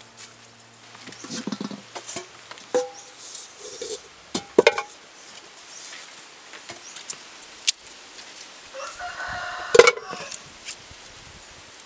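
A rooster crows once, a call of about a second roughly nine seconds in. Several sharp clicks and knocks of things being handled on the table are louder than the crow.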